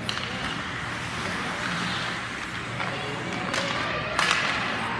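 Spectators' voices and general game noise, with a couple of sharp knocks about three and a half and four seconds in.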